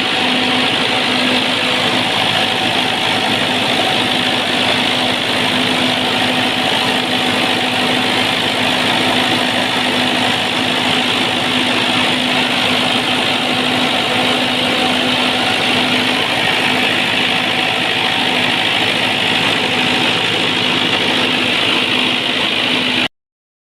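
Perkins diesel engine of a generator set running steadily at a constant speed, with a steady drone and loud mechanical hiss; the sound cuts off abruptly near the end.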